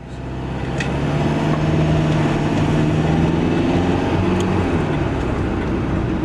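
Car engine and road noise heard from inside a moving car, a steady low hum that fades in over the first second or so.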